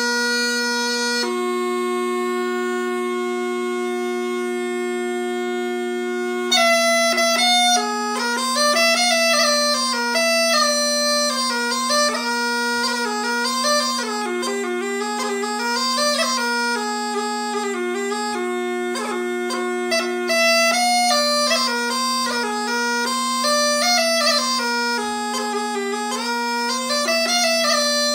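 Swedish bagpipe (säckpipa) with a copy of the Mockfjärdspipa chanter, playing a folk wedding march over a steady drone. It opens on two long held notes, and the melody starts about six seconds in.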